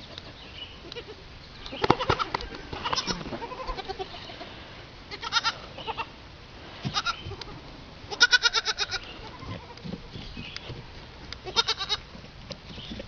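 An animal calling again and again: about six short, trembling cries, the longest and loudest about eight seconds in.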